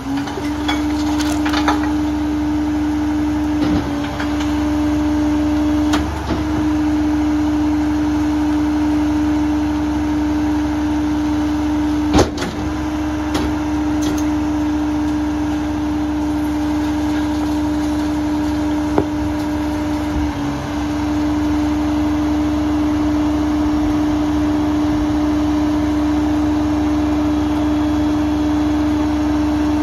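Rear-loader garbage truck (New Way Viper body) running its packer cycle: the engine, held at raised speed, drives the hydraulics with a steady whine that sets in as the cycle starts and holds throughout, dipping briefly a few times. Occasional sharp metal clanks from the cart tipper and hopper.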